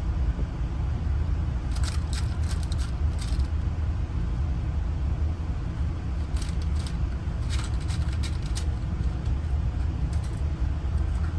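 Small metal lock parts clicking and tinkling as a car door lock cylinder and its wafers are handled, in two bursts about two seconds in and again from about six to nine seconds in, over a steady low rumble.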